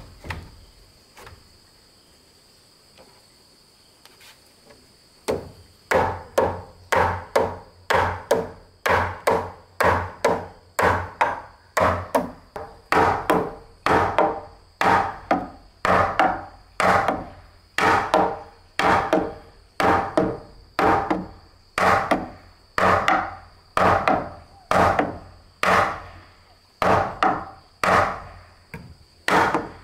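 A hammer striking timber in a steady rhythm, about one and a half blows a second, knocking a sawn wooden crossbeam down onto the joint at the top of its post. The blows begin about five seconds in, after a few light knocks.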